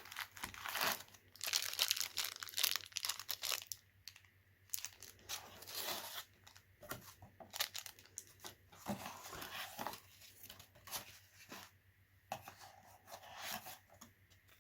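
Packaging being handled and torn open by hand: irregular bursts of rustling and ripping, busiest in the first few seconds.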